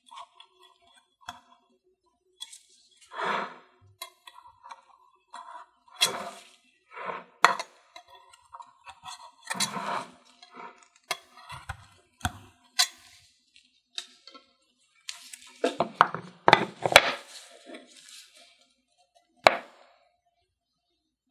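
A knife clinking and scraping against a glass food container as shredded taro is pressed down into it, in irregular taps and short scrapes. A sharp knock sounds near the end.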